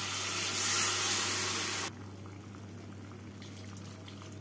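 Water poured into a hot kadai of fried, spiced potatoes, hissing and bubbling as it hits the hot pan. The loud hiss cuts off suddenly about two seconds in, leaving only a faint hiss.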